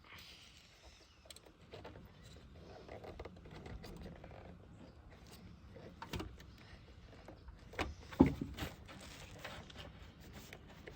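Scattered clicks and knocks of hands working a headlight assembly, struggling to pull a bulb's wiring plug loose; the loudest knock comes about eight seconds in.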